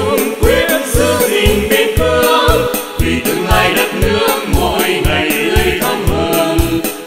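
A Vietnamese song: singing over a band backing with a steady drum beat.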